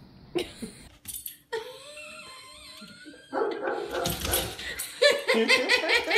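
A dog whining and yipping in rapid, short, high-pitched cries. They are faint at first and get much louder about three seconds in.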